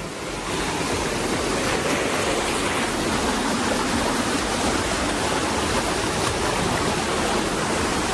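Steady rush of falling and flowing water from a monsoon-swollen waterfall and stream, an even hiss with no break.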